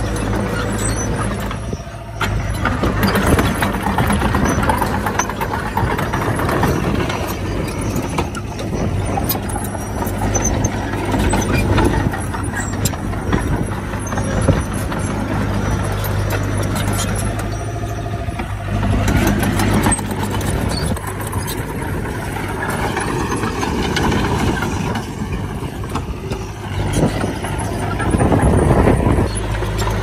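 Heavy diesel earthmoving machinery, a bulldozer and dump trucks, running with a steady low engine drone and several louder surges as they work soil.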